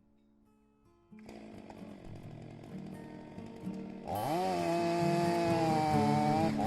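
Two-stroke chainsaw engine running at high revs over background music. The engine gets much louder about four seconds in, and its pitch dips and rises as the throttle is worked.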